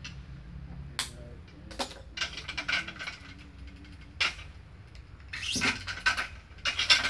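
Badminton racket being strung on a stringing machine. String is drawn through the frame in two longer swishing pulls, with several sharp clicks from the machine and racket in between.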